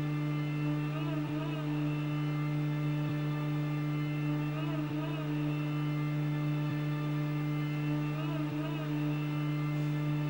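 A steady low electrical-sounding hum with several even overtones. Faint pairs of wavering tones recur about every three and a half seconds.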